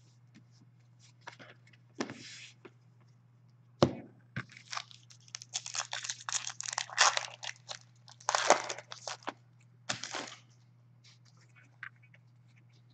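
Plastic foil wrapper of a hockey card pack crinkling and tearing as it is opened, with a run of dense crinkling in the middle. A single sharp knock about four seconds in, over a faint steady low hum.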